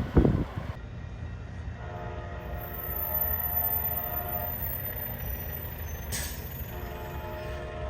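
Amtrak Pacific Surfliner train horn sounding two long blasts, a chord of several notes at once, the second starting near the end and running on. Wind thumps the microphone at the start, and a short hiss comes just before the second blast.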